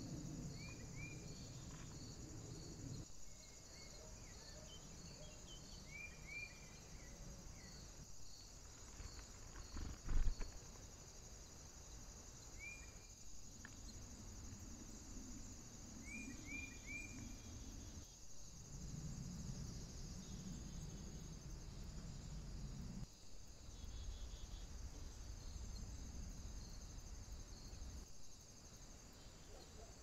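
Faint woodland sound: a steady high-pitched insect buzz, with short bird chirps in twos and threes now and then. A single thump about a third of the way in is the loudest sound.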